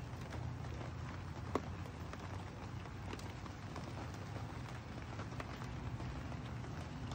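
Steady rain falling on a wet wooden deck, with scattered individual drips ticking and one sharper drop about a second and a half in, over a steady low rumble.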